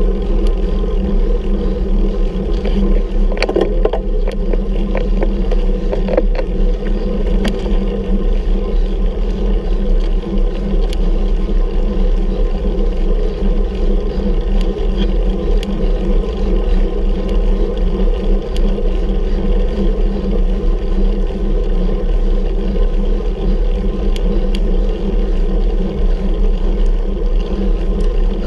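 Steady rumbling wind and road noise picked up by a camera riding along on a road bicycle climbing a hill, with a few sharp clicks about three to six seconds in.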